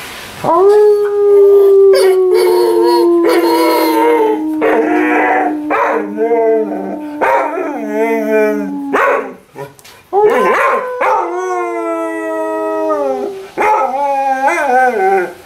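Dog howling on command: one long drawn-out howl that slowly falls in pitch, then after a short pause a second, shorter howl, and a few short wavering yelps near the end.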